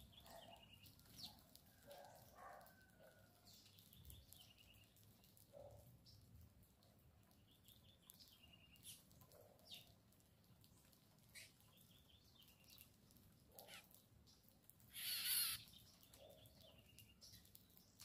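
Small birds faintly chirping and calling around a backyard grain feeder, with one short song phrase repeated about every four seconds. A brief, louder rush of noise comes about fifteen seconds in.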